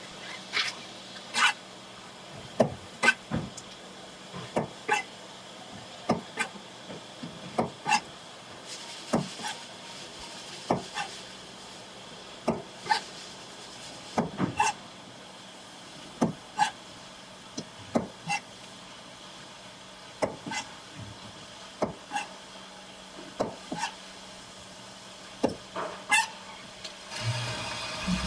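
Knife chopping through fish on a plastic cutting board: sharp knocks every second or so over a faint steady hum. Near the end a hiss of spraying water starts.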